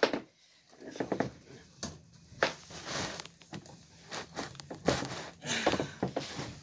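Black metal tube chair frame being handled and its parts pushed together: irregular light clicks, knocks and rustles.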